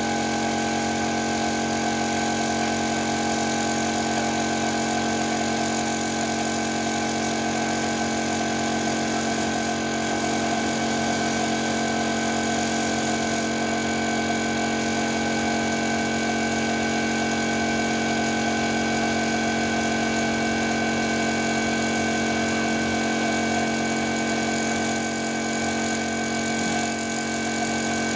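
Air compressor motor running steadily with a constant hum, supplying air to a paint spray gun.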